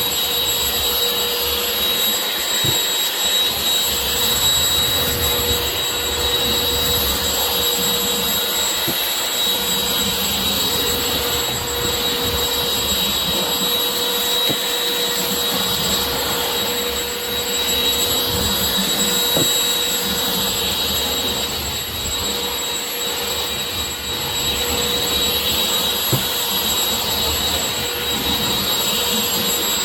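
Shark CH964AMZ cordless stick vacuum running steadily: a continuous rush of suction air with a steady high motor whine over it.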